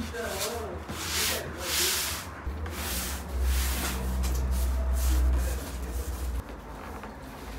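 Hands rubbing and pressing a coiled rope of dough against a wooden tabletop, a rubbing, sliding sound coming in swells, with a low rumble through the middle.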